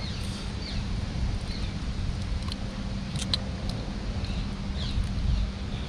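A motor's steady low drone with a constant hum. A few light clicks sound around the middle, and faint short falling chirps come and go above it.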